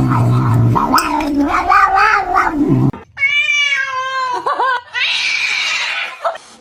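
Cats caterwauling: a low, drawn-out yowl for about three seconds, then after an abrupt cut a higher yowl that wavers in pitch, followed by about a second of hissing.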